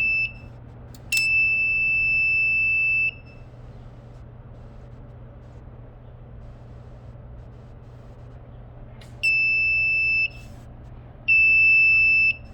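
Smoke alarm sounding in long, high, steady beeps at uneven intervals: the end of one beep at the very start, a two-second beep, about six seconds of pause, then two one-second beeps near the end. The occupants put the alarm down to its battery being disconnected. A low hum runs underneath.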